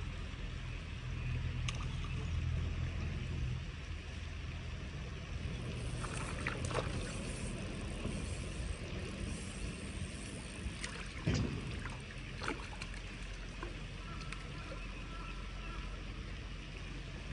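Wind rumbling on the microphone, with scattered clicks and splashes as a hooked fish is played and reeled in to the bank; a sharper knock comes about eleven seconds in.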